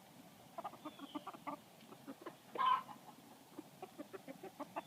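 Chickens clucking in a rapid series of short calls, with one louder, longer call about two and a half seconds in.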